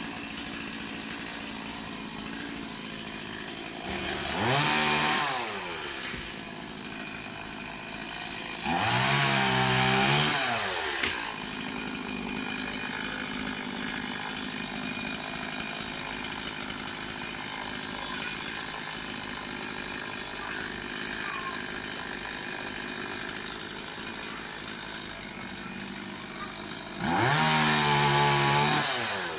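Small chainsaw running at idle and revved up three times, each time climbing in pitch and then dropping back.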